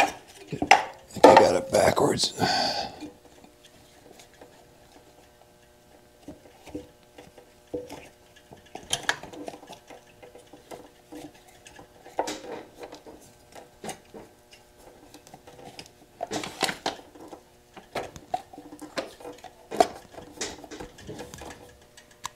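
Hard plastic and metal parts clattering and clicking as they are handled and pressed into place on a motorcycle frame, in short bursts with quiet gaps; the loudest rattle comes about a second in, another about two-thirds of the way through.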